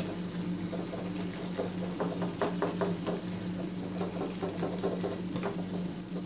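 Wooden spatula mashing and stirring soft cooked tomatoes in a non-stick pan: irregular wet squelches and scrapes, several a second, over a steady low hum.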